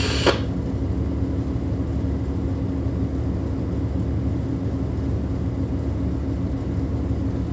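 Tugboat's diesel engines running steadily inside the wheelhouse, a low drone with a constant hum, as the tug pushes its bow fender against a ship's hull.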